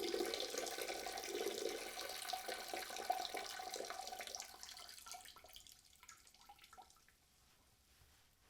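A man's urine stream splashing into toilet water, weakening after about four seconds into a few last dribbles and drips, and stopping about seven seconds in.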